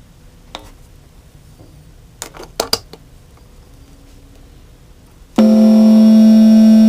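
A few sharp clicks from handling the box, then, about three-quarters of the way in, a loud steady electronic tone with a buzzy, many-overtone sound starts suddenly and holds: the circuit-bent sound chip from a stuffed-elephant lullaby toy.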